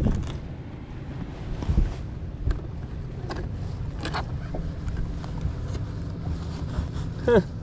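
Boat motor running steadily, with wind buffeting the microphone. There are a couple of knocks about two seconds in, and near the end comes one short sound sliding down in pitch.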